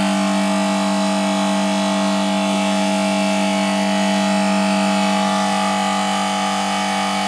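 Copeland refrigeration compressor unit running steadily: a constant motor hum with a steady hiss of air over it.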